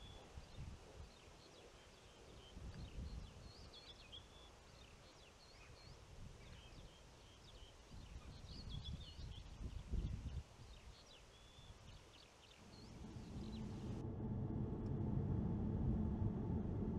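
Small songbirds chirping and singing, with irregular gusts of wind on the microphone. About 13 seconds in, a steady low rumble rises and takes over, and the birdsong stops abruptly a second later.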